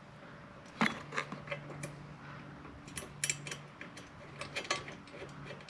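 Small metal hardware clicking and tapping at irregular intervals as nuts, washers and bolts are handled and hand-tightened on a motorcycle luggage rack's side plates, the sharpest click about a second in. A faint steady low hum lies underneath.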